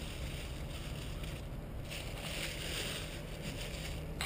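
Steady low rumble with a soft hiss: wind buffeting the microphone of a body-worn camera.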